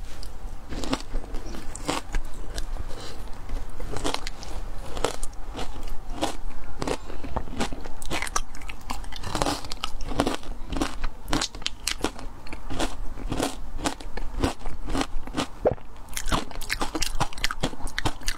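Frozen matcha ice being crunched and chewed in the mouth, close to a clip-on microphone: a steady run of sharp crunches, two or three a second.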